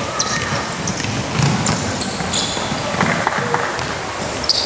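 A basketball being dribbled on a wooden gym floor, with short high squeaks of sneakers on the court as players run.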